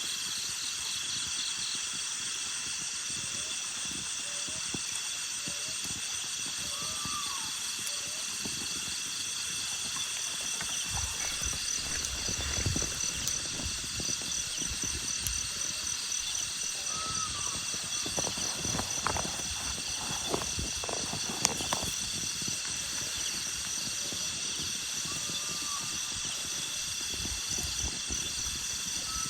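Steady, high-pitched pulsing chorus of night insects, with a few short chirping calls now and then. Scattered rustles and knocks come through the middle.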